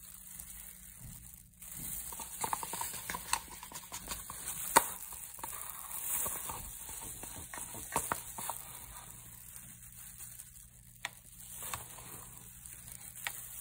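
Plastic glove and disposable plastic cup rustling and crinkling as the cup is tipped and tapped to empty the last of the glitter, with scattered light taps and one sharper tap a little under five seconds in.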